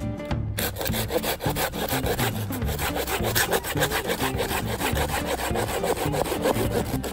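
Small hand saw cutting through a split piece of firewood with quick back-and-forth strokes, starting about half a second in.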